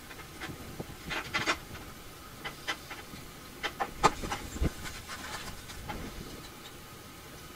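Small clicks, taps and rustling of hands and a pick working wire connectors on a 3D printer's main board. A cluster of clicks about a second in and the loudest click about four seconds in.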